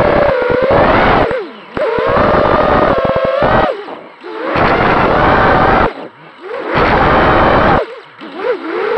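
Quadcopter's Cobra 2205 2300 KV brushless motors spinning DalProp 5040 three-blade props, heard from the onboard camera: a loud whine in throttle bursts of one to two seconds, its pitch bending up and down, with short drops between bursts. Four bursts in all, and a fifth rising near the end, as the quad flips and rolls.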